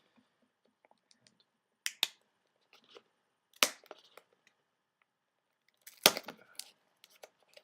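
Plastic product packaging being pried and forced open by hand: a few separate sharp cracks and clicks, the loudest about six seconds in.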